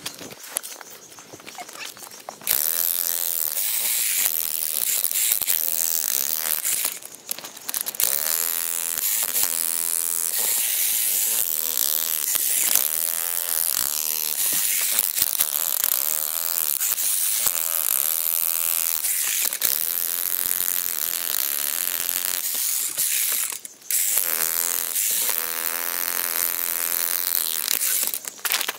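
VEVOR 3500W electric demolition hammer pounding its bit into a large rock, sped up into a fast, continuous buzzing rattle. It starts about two and a half seconds in and stops briefly twice.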